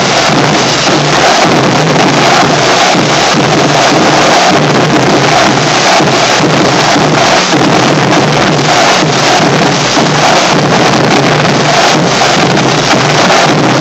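A drumline of marching snare drums playing a fast cadence together, loud and unbroken throughout.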